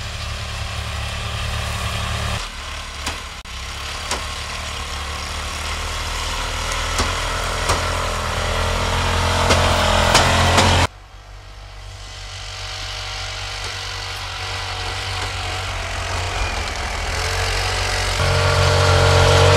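Engine of the Stompertech ATRV ice-fishing vehicle running as it drives through deep snow. It grows steadily louder as it approaches, with a few sharp knocks. The sound jumps abruptly in level twice.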